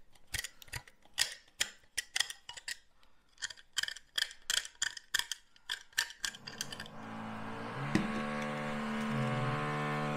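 Utility knife blade scraping cured polyurethane foam off a foam gun's barrel in quick, irregular short strokes. About seven seconds in, a steady machine drone with a fixed pitch starts and stays louder than the scraping.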